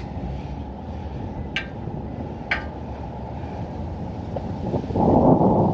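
Wind buffeting the microphone, a steady low rumble with a stronger gust near the end. Two light, sharp clicks sound about a second apart in the middle.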